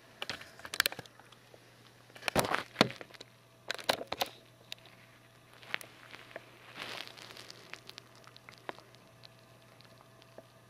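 A cat's paw and claws tapping and scratching at a MacBook Pro laptop screen: irregular clusters of sharp clicks and scrapes, the loudest about two seconds in.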